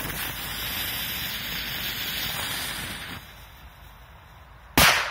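A 'rose' ground firework with a bang charge hissing as it burns for about three seconds. After a short lull its charge goes off in one sharp, loud bang near the end.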